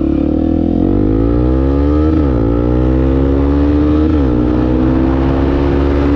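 Honda XR250 Tornado single-cylinder four-stroke engine breathing through an aftermarket Protork 2 exhaust, accelerating hard. The revs climb, drop at an upshift about two seconds in, climb again, and drop at a second upshift about four seconds in before climbing once more.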